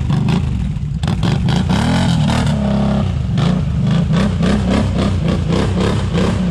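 ATV engine revving up and down as the quad is ridden through mud, with many short clattering knocks over it.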